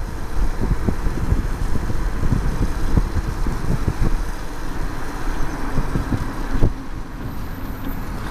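Road noise inside a moving car: tyres on wet pavement and the engine, with low thumps of wind buffeting the microphone. There is a slightly louder bump about two thirds of the way through.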